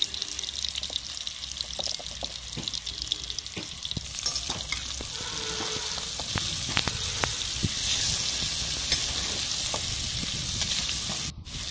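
Marinated red pomfret steaks sizzling in hot oil in a pan, a steady hiss with scattered crackles and pops that swells a little about halfway through. A steel spatula scrapes and knocks against the pan as it slides under the fish to turn it. The sound cuts out briefly near the end.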